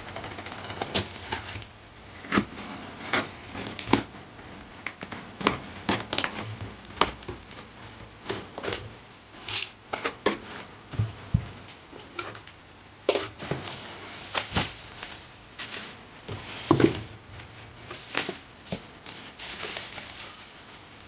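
A sneaker box being unboxed by hand: irregular rustling and crinkling of paper and cardboard, with light handling knocks throughout.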